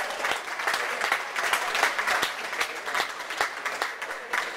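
Spectators applauding, with many separate hand claps heard through the crowd noise.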